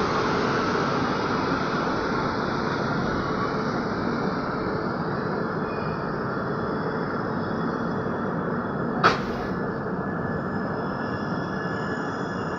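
Passenger train running on the rails, a steady rumble that slowly grows quieter, with one sharp click about nine seconds in and faint thin high squeals after it.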